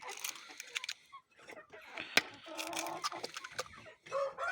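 Chickens clucking while being fed, with a short pitched call in the middle and scattered sharp clicks throughout.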